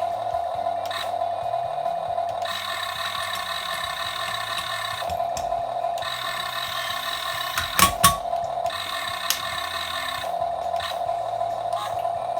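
Huina 1550 toy RC excavator's small geared electric motors whine in stop-start runs as its functions are worked, over a steady wavering electronic engine sound from its built-in sound module. Two sharp clicks come about two-thirds of the way in.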